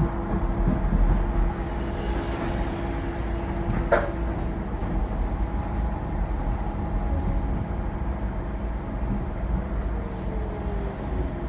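Docklands Light Railway train running along the track, heard as a steady low rumble with a held motor tone. About four seconds in there is one sharp clack over a junction. Near the end a motor whine falls in pitch as the train slows.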